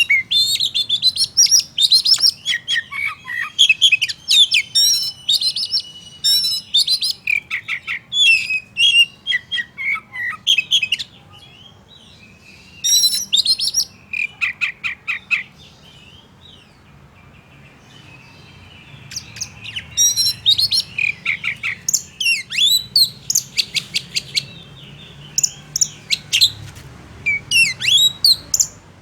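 Oriental magpie-robin (kacer) singing: quick runs of varied whistles and chirps, loud and busy, with two short pauses in the middle.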